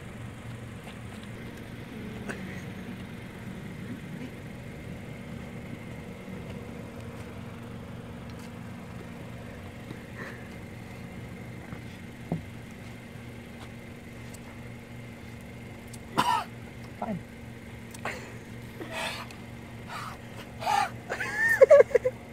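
A person coughing and clearing his throat, burning from an extremely hot sauce. The coughs are short and come a few at a time from about two-thirds of the way through, and strained, wavering voice sounds follow near the end. A steady low hum, like a car engine idling, runs under it.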